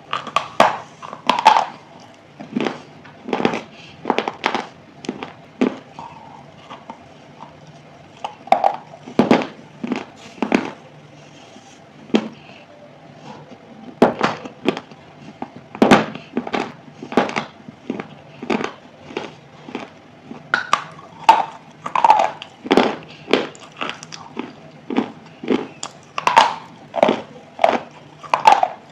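A person biting and chewing something hard and brittle close to the microphone: sharp crunches come in irregular clusters, about one to three a second, over a faint steady hum.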